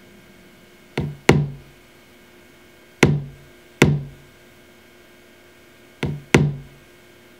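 Kick drum loop playing from a Maschine drum sampler's step sequencer at about 95 BPM, with no other drums in it yet. The kicks come in pairs, a quieter half-velocity kick followed closely by a full-strength one, three pairs in all.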